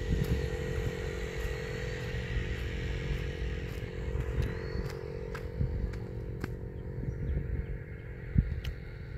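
A motor running steadily with a constant hum over a low rumble, getting fainter in the second half, with a few sharp clicks.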